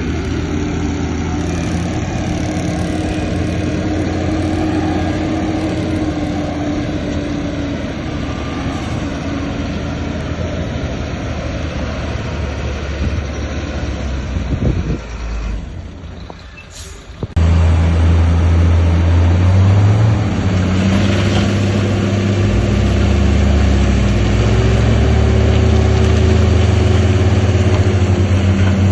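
Heavy diesel engines of construction machinery (bulldozer and dump trucks) running steadily. A little past halfway the sound drops away for a second or two, then returns louder with a deeper, steady engine tone.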